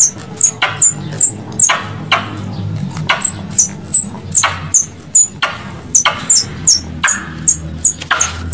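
A Cape ground squirrel chewing food held in its forepaws: sharp, crisp crunches about two or three a second, each with a brief high click.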